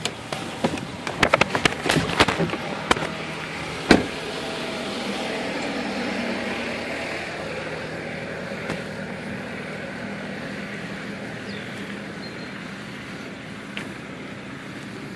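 Clicks and rattles, then a loud thump about four seconds in like a vehicle door shutting, followed by a steady hum of a vehicle engine idling.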